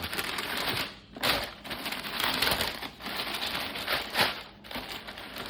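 Crinkly wrapping rustling and crumpling in uneven surges as a new sneaker is taken out of its box, with a brief lull about a second in.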